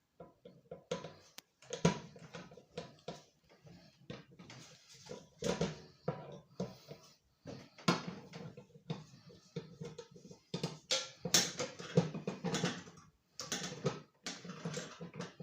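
Hand cutters working at the screws on a microwave's metal underside: irregular clicks, snaps and scraping knocks of tool on metal.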